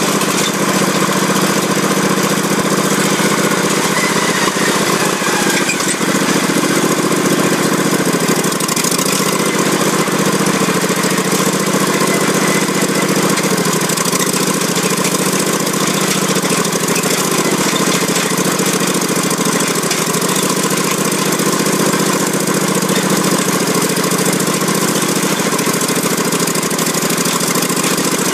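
Lawn tractor engine running continuously while the tractor is driven at speed, its pitch wavering up and down as the throttle and load change.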